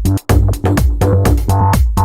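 Electronic dance music with a steady, pounding beat and a heavy bass line, the beats about four to a second with brief drop-outs between phrases.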